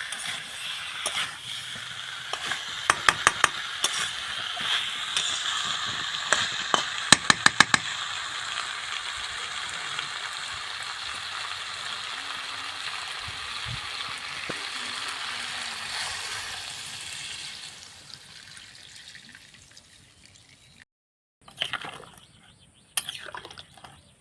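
Cauliflower and egg curry sizzling in a pan while being stirred, with rapid clinks of a metal spoon against the pan about three and seven seconds in. The sizzling fades out about three quarters of the way through and breaks off at a cut, followed by a few faint clatters.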